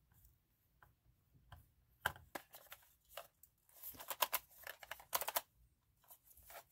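Scattered light clicks and taps of a plastic camera flash speedlight and a small precision screwdriver being handled, with a few quick clusters of clicks, as the flash is turned and worked apart.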